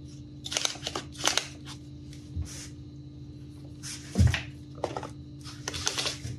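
Hands fitting strips of sanding belt into the plastic parts of a 3D-printed filament winder: scattered clicks, taps and rustles, with the loudest knock about four seconds in.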